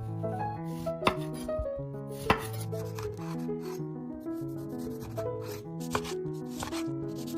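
Kitchen food-preparation sounds, repeated scraping strokes and a few sharp knocks on a board, over background music with a plain stepped melody.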